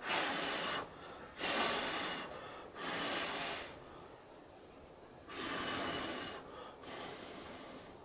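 A person blowing four puffs of breath, each about a second long, onto a great spotted woodpecker's feathers to part them and check its fat reserves. A fifth, weaker puff comes near the end.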